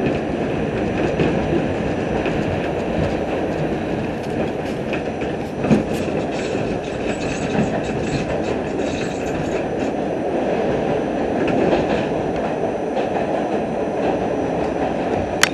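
R68 subway car running through a tunnel: a steady rumble of steel wheels on rail with clacking over the rail joints, a brief knock about six seconds in, and a sharp click near the end.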